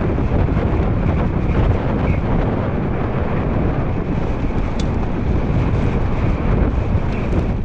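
Mountain bike descending fast over loose volcanic gravel and scree: tyres crunching and the bike rattling under heavy wind buffeting on the camera microphone. Steady and loud, with no letup.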